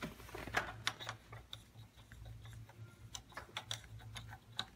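Faint, irregular light metallic clicks of a socket and extension turning a camshaft phaser bolt in by hand, over a low steady hum.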